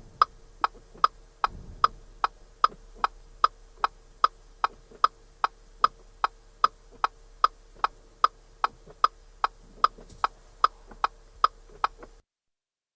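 Car turn-signal indicator ticking steadily inside the cabin, about two and a half clicks a second; the clicking stops near the end.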